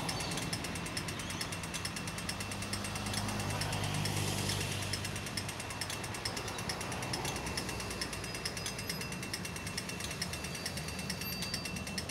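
A continuous rapid mechanical rattle over a low hum of street traffic.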